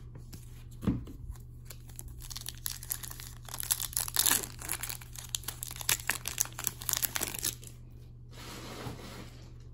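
Foil wrapper of a hockey card pack crinkling and tearing as it is opened, a dense run of crackles through the middle. A single knock about a second in.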